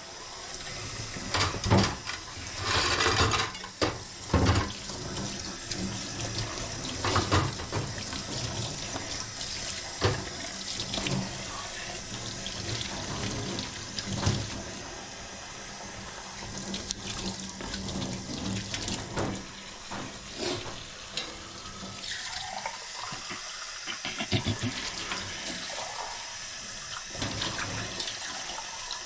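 Kitchen tap running into a sink while dishes are washed by hand, with scattered knocks and clinks of dishes and utensils.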